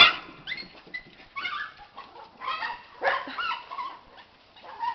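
Miniature pinscher whining in several short bursts, excited by talk of a squirrel.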